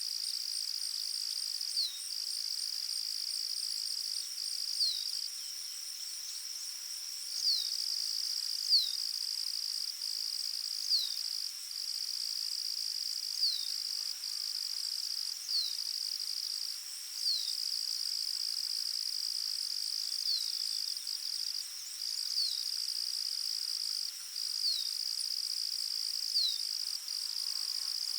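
Forest ambience: a steady high-pitched insect trill, as of crickets, broken by brief gaps every few seconds. A short call sliding downward in pitch repeats about every two seconds and stands out as the loudest sound, the kind of call a bird gives.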